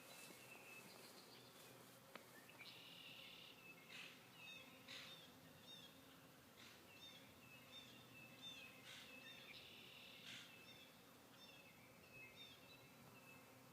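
Faint outdoor ambience: a songbird repeating short, high chirping notes about once a second, over a faint low hum that fits honeybees flying around the hives.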